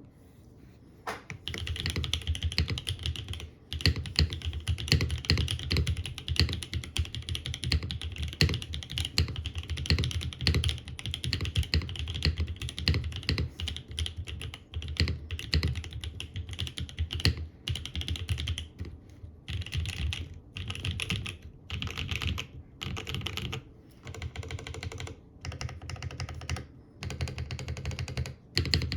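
Typing on a Cloudline TKL mechanical keyboard with lubed and filmed Milky Top Creamsicle switches on a polypropylene plate in an O-ring mount, rapid key clacks in runs broken by short pauses. The typing starts about a second in.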